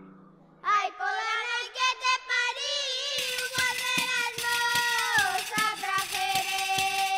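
A high female voice singing a slow, wavering melody, alone at first after a chord fades out; about three seconds in, an electronic backing comes in under her, with evenly spaced ticking percussion and held tones.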